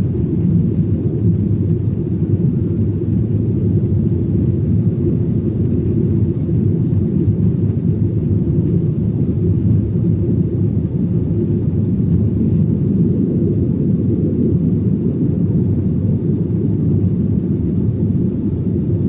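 Steady low rumble of a Boeing 737-800 heard from inside the passenger cabin, the engines and airflow droning evenly without change.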